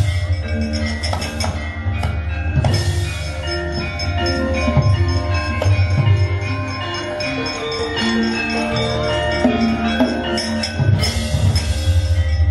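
Javanese gamelan playing: bronze metallophones and gongs ringing in steady interlocking tones over a hand drum. Bursts of bright metallic clatter from the puppeteer's kepyak plates come at the start, about three seconds in, and near the end.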